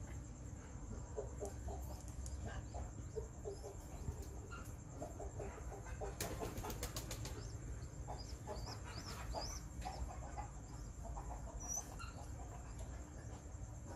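Faint clucking of chickens in short scattered calls, with small birds chirping higher up.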